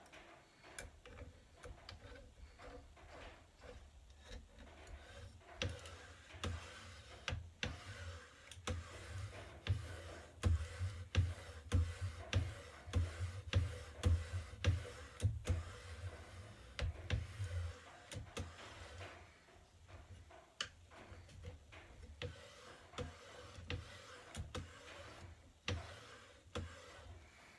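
Irregular clicks and knocks of 3D-printer kit parts and tools being handled during assembly, over a low rumble that stops about two-thirds of the way through.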